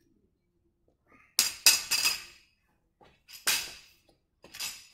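A light steel barbell clanking as it is set down and shifted on a rubber gym floor: a quick cluster of three sharp metallic clinks with a short ring about a second and a half in, then two more single clinks.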